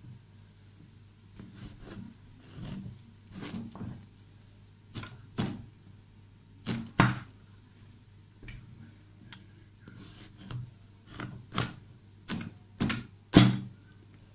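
Long kitchen knife cutting into a whole green pumpkin's hard rind: a series of sharp, uneven cracks and knocks as the blade is worked into the shell and the pumpkin is shifted about, coming more often and louder towards the end, the loudest crack near the end.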